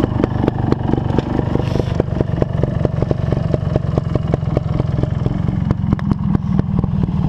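Trials motorcycle engine running at low revs, with an even beat of sharp pulses about six or seven a second.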